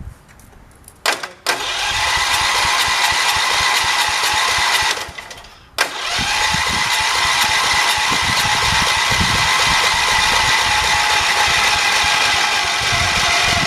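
Electric starter cranking the 1978 John Deere 208's engine with the spark plug wire off, so the engine does not fire. A short blip about a second in, a run of about three and a half seconds, a brief pause, then a long run of about eight seconds. The starter bogs down quite a bit as the variator comes up all the way.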